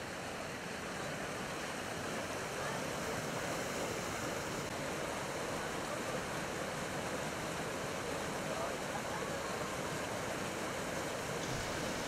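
Mountain stream in full spring flow rushing over rocks in whitewater: a steady, even rush of water.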